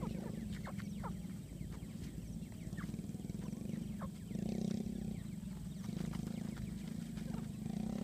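Grey francolin chicks peeping: many short, thin calls scattered throughout, over a steady low rumble that swells about four and a half seconds in.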